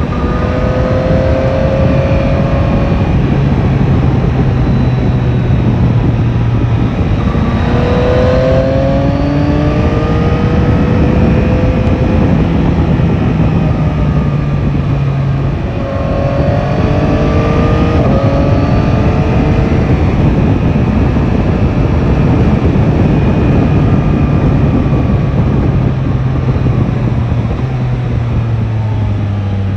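Yamaha Tracer 9 GT's three-cylinder engine under a rider's throttle, pulling up through the gears in repeated rising surges that drop back at each shift, over a steady rush of wind noise.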